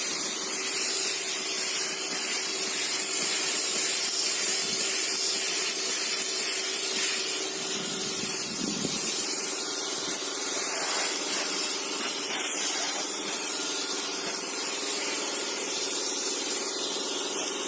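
Steady hissing spray over a constant low hum.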